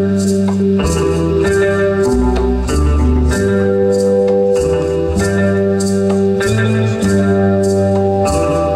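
Live rock band playing: guitar over a driving drum beat and a moving bass line, with cymbal strokes about two to three times a second.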